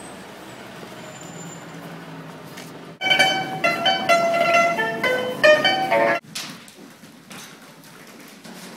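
Pipa (Chinese lute) played by a busker: a quick run of plucked notes that starts suddenly about three seconds in and breaks off just as suddenly about three seconds later. Before and after it there is only a quieter background noise.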